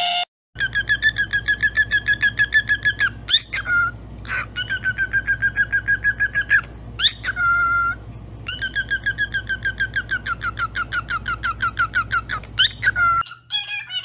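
Cockatiel chirping in a fast, even run of short repeated notes, about eight a second, broken now and then by a quick rising whistle.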